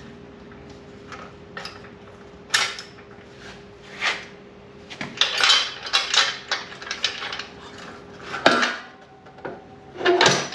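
Light metal clinks and rattles, coming irregularly and busiest in the second half, from hand work on a log splitter's rusty tow hitch. A faint steady hum runs underneath and stops near the end.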